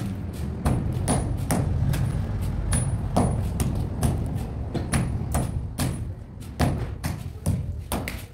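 A steady run of sharp knocks, roughly two a second, over a low rumble.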